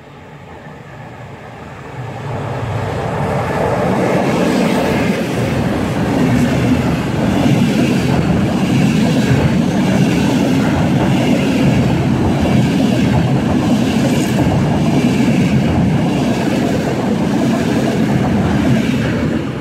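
Passenger train passing close along the platform: the noise builds over the first few seconds, then holds as a steady rush of wheels on rail with clicks from the wheels over the rail joints, falling away near the end.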